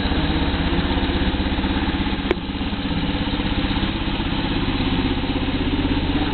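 1993 BMW R1100RS's boxer twin idling steadily with an even, rhythmic beat. A single sharp click sounds a little over two seconds in.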